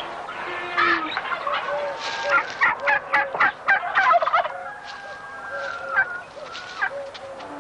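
A flock of domestic turkeys gobbling, the calls coming thick and overlapping for the first four and a half seconds, then thinning out to scattered calls.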